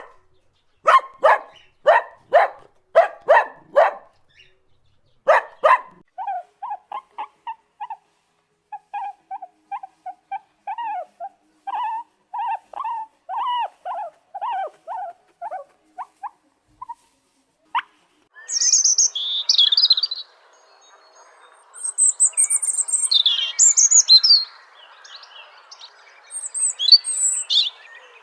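A dog barks in a quick series of sharp barks, with one more a second later. Then comes a string of short, rapid calls from a smaller animal, and after that high, twittering birdsong over a faint hiss.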